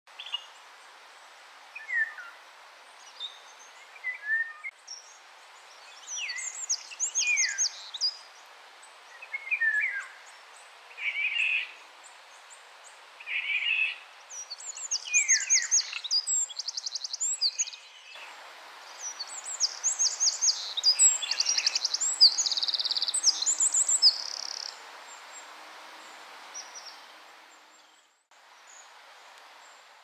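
Eurasian wren singing in bursts of fast, high trills, loudest and longest in the middle stretch, with short sliding notes scattered through the first half over a steady hiss.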